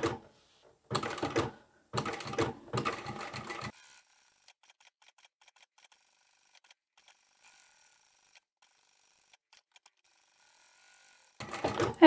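Sewing machine stitching through layers of fabric and interfacing in two short runs, about a second in and again from two seconds to nearly four seconds, then near silence.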